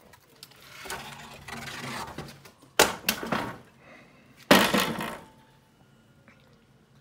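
A rustling scrape, then two sharp clattering knocks about a second and a half apart, the first followed by a few smaller knocks.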